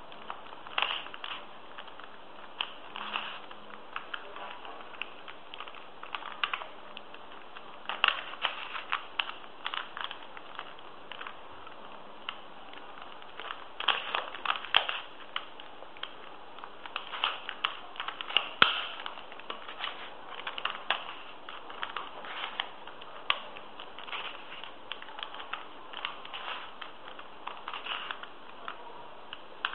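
3x3 Rubik's cube being turned by hand: quick plastic clicks and clatters of face turns coming in irregular bursts, with short pauses between runs of moves.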